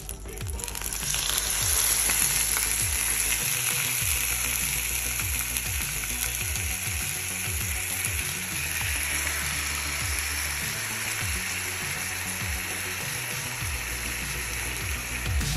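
Tandoori-marinated chicken pieces frying in hot oil in a pan: a loud, steady sizzle that sets in about a second in and keeps going.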